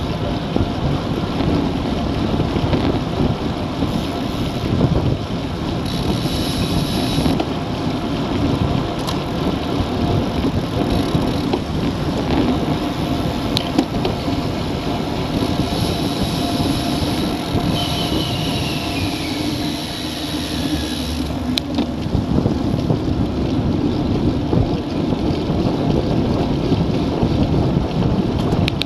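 Wind rushing over the microphone of a bike-mounted camera on a road bike riding at about 37 km/h, mixed with tyre and road rumble. The noise is steady and loud throughout.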